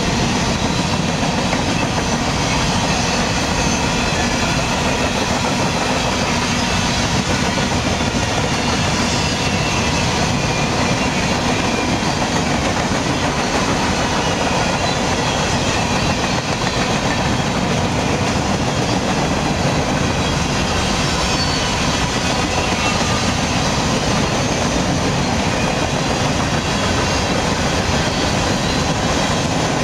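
Freight train of covered hopper cars rolling past: a steady, loud, unbroken noise of steel wheels running on the rails.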